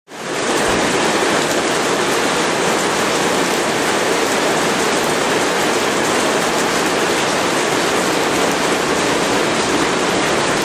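Steady rain pouring down, an even hiss that fades in over the first half second and then holds level.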